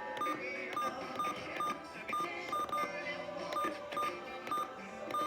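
A rapid run of short electronic beeps, about two to three a second and unevenly spaced, each with a click.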